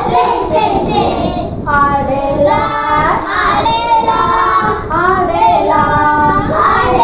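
A group of young children singing together, in phrases with short pauses between them.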